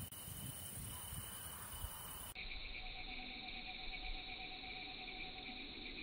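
Steady night-time chorus of crickets chirping. About two seconds in, the sound cuts abruptly to a different, lower-pitched insect chorus.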